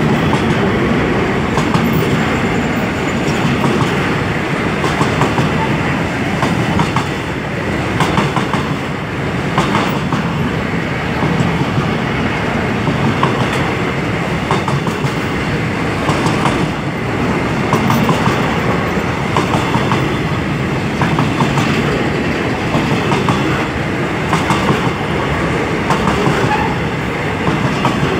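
Freight train of covered hopper wagons rolling past close by: a steady rumble of steel wheels on the rails, with repeated short clicks as the wheel sets cross the rail joints.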